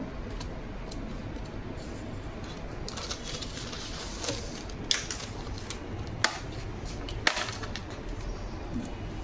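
Three sharp clicks and taps, spaced about a second apart, over steady low background noise: hands and tools working at an opened laptop's plastic case and internal parts.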